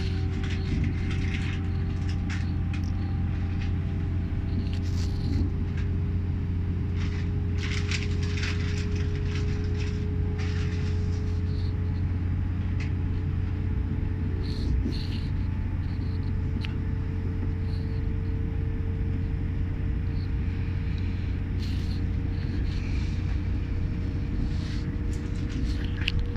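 Cabin noise of a GWR Class 800 train on the move: a steady low rumble, with a faint whine that rises slowly in pitch as the train gathers speed. A few light clicks come about a third of the way in.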